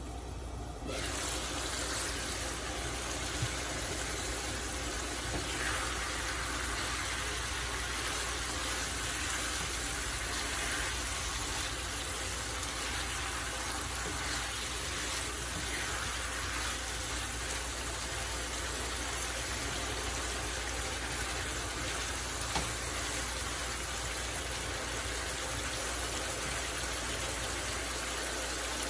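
Beef pieces simmering in a pan of spicy sauce with a steady bubbling hiss as the meat's own cooking liquid boils down. The sound starts suddenly about a second in.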